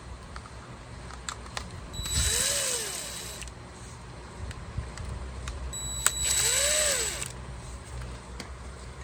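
Cordless drill-driver run in two short bursts, its whine rising then falling in pitch each time, backing out screws from the door's lock actuator assembly.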